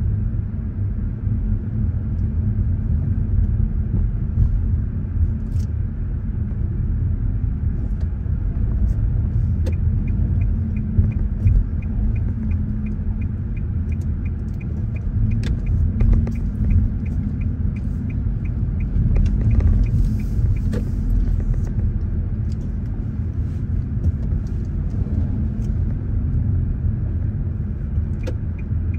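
Steady low rumble of a car's engine and road noise heard from inside the cabin. The turn-signal indicator clicks evenly, about two clicks a second, for several seconds midway and starts again near the end.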